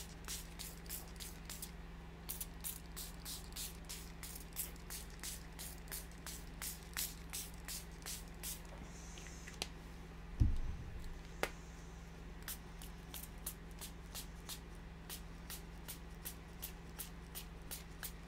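Small plastic fine-mist spray bottle pumped over and over, a quick hiss about three times a second. The spraying stops for a few seconds in the middle, where there is one low thump and a click, then starts again.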